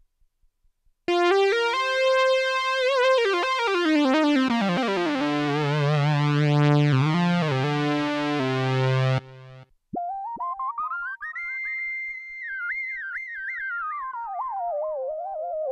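Korg RK-100S 2 keytar playing synthesizer presets: a dense, buzzy patch runs down in pitch over a swelling bass and cuts off suddenly about nine seconds in. After a short gap, a single lead tone slides up and down in pitch with a wobble.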